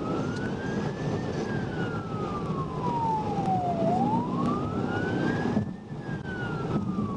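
Police car siren in wail mode, slowly rising and falling in pitch, one full cycle about every four and a half seconds, over steady vehicle and road noise.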